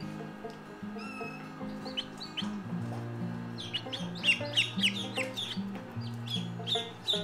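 Newly hatched Rhode Island Red chicks peeping: short, high, falling peeps that begin about two seconds in and come several a second, over background music with sustained low notes.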